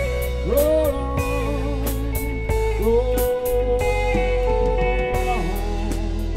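Live rock band playing an instrumental passage between sung lines: a lead electric guitar holding long notes and bending them up, over steady bass and drums with cymbals.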